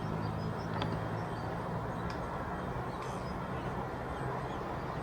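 Steady outdoor background noise with a low hum that fades out a couple of seconds in, and a few faint, short high bird chirps.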